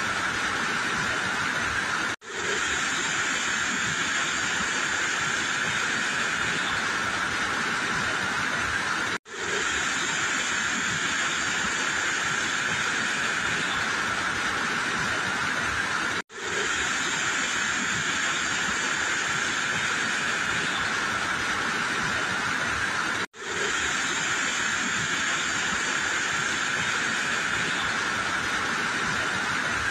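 Muddy flash-flood water rushing, a steady loud hiss that cuts out briefly four times, about every seven seconds.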